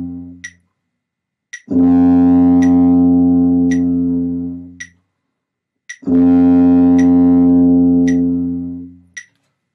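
Tuba playing a long open-valve low concert F, held about three seconds, then a short gap, then the same note held again. A metronome clicks about once a second throughout. The tail of an earlier held note dies away at the start.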